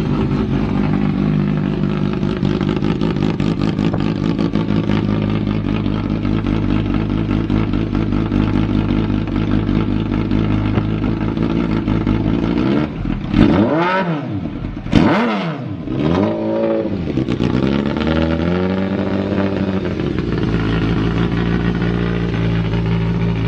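Kawasaki ZX-12R inline-four engine idling steadily, blipped twice in quick succession about halfway through, the revs rising and dropping straight back, then once more gently before settling to idle again. The seller describes it as idling stably with no abnormal noise.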